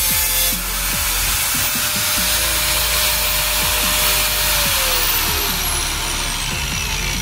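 Angle grinder with a cutting disc, cutting sheet steel for the first half-second, then running free. About four and a half seconds in it is switched off and its whine falls in pitch as the disc spins down.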